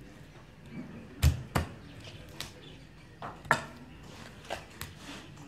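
Knife chopping raw chicken on a wooden chopping block: about seven sharp knocks at an uneven pace, the loudest about a second in and again about three and a half seconds in.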